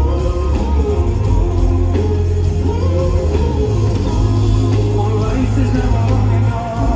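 Live band music at a concert, heard from the audience: a heavy, steady bass with a melodic line over it. The loudness dips briefly near the end.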